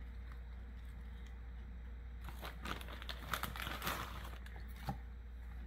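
Light, crackly crinkling of moist brown sugar being crumbled by hand and scattered over sliced apples, most of it in a cluster about two to four seconds in, ending with a single small tap.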